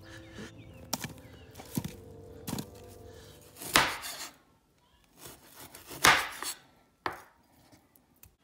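Chef's knife slicing through raw beef onto a wooden cutting board: two loud cutting strokes about four and six seconds in, a lighter one about a second later. A few light knocks in the first few seconds.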